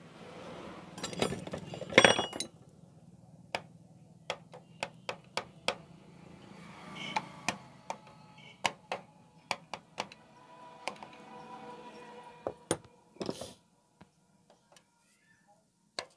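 Screwdriver and small metal parts clicking and clinking against a motorcycle's magneto stator plate while its screws are set. There is a louder clatter about two seconds in, then irregular single taps and clicks.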